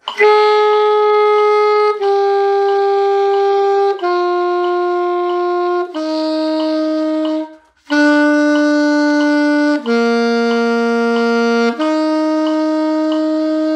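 Alto saxophone playing a slow exercise line of seven sustained notes, each about two seconds long (dotted half notes in 3/4 at 92 beats a minute). The notes step down from one to the next, with a short breath before the fifth note; the last note rises again and is held longest. A metronome ticks the beat faintly underneath.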